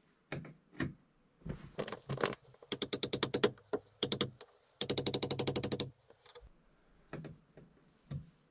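Hammer striking a chisel held against the wall, cutting off the protruding end of a plastic wall plug: a few separate taps, then two quick runs of rapid taps, about ten a second, around three and five seconds in.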